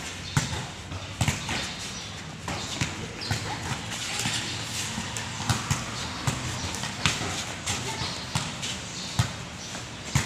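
Sneakers shuffling, stepping and scuffing on a concrete court during a volleyball footwork drill, with scattered sharp slaps and thuds. A volleyball is struck near the end.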